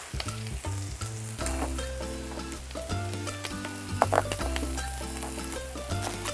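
Kitchen knife chopping spring onions on a cutting board: a run of quick, irregular taps of the blade striking the board through the stalks. Background music with a steady bass line plays under it.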